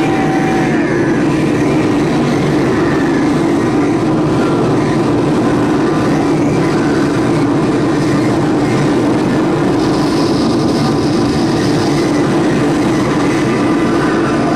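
Live noise performance: a loud, dense, unbroken wall of rumbling noise with no beat or rhythm. A higher hissing layer joins about two-thirds of the way through.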